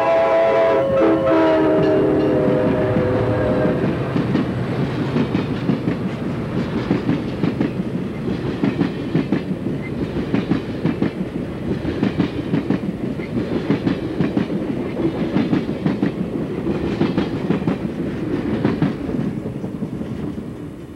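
Amtrak passenger train led by two EMD F40PH diesel locomotives passing close by. The multi-tone air horn drops in pitch as the locomotives go past and stops a few seconds in. Then the bilevel passenger cars roll by with a rhythmic clickety-clack of wheels over the rail joints, fading near the end.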